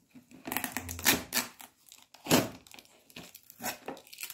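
Clear plastic wrapping on a small charger box crinkling and rustling as it is handled and unwrapped, in irregular rustles with louder crackles about a second and two and a quarter seconds in.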